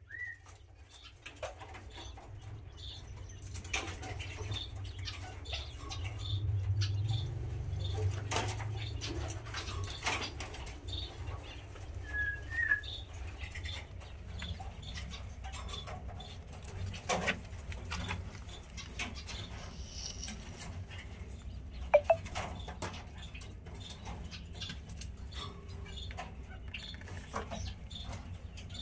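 Quail in a pen: a couple of short chirps and light rustling of the birds and their surroundings over a steady low rumble on the microphone, with scattered small clicks. Two sharp taps come a little past the middle.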